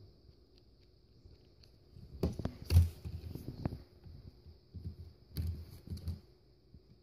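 Handling noise of a plastic toy owl being moved about and set down on a hard surface: a few dull knocks and rubs, the loudest about three seconds in.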